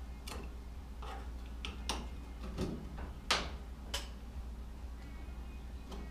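Pry tool working the rubber windshield gasket along the glass and the cab's sheet-metal lip. It makes scattered, irregular clicks and scrapes, the loudest about three seconds in, over a steady low hum.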